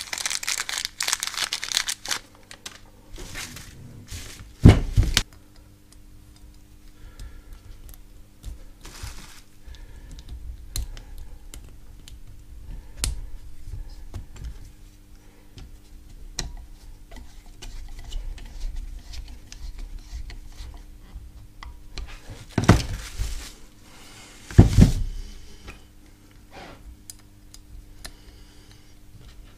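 Hands fitting new carbon brush units into a mobility scooter's DC motor. A plastic bag crinkles at first, then come scattered small clicks and taps of the metal parts. Three louder knocks stand out, one about five seconds in and two close together past the twenty-second mark.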